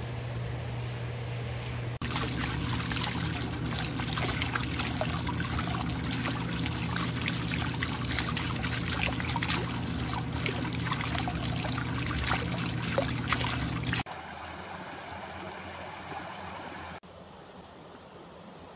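Hot spring water welling up and splashing out of a stone spout, a dense, steady gurgle of small splashes that starts about two seconds in and cuts off suddenly some twelve seconds later. A low steady hum lies beneath it.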